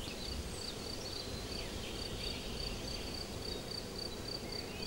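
A cricket chirping steadily, about three short high chirps a second, over a low outdoor background with a few faint bird calls.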